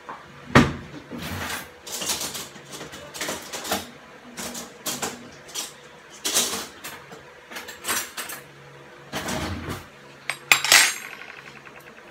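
Metal kitchen utensils and cookware clattering and knocking in an irregular string of impacts, the loudest about half a second in. Near the end a quick rattle rings on and dies away.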